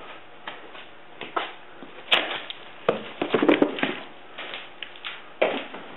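A run of irregular knocks and clatters, densest about two to four seconds in with one more near the end: a cardboard box of shop wipes being set down and handled on a fiberglass deck mold.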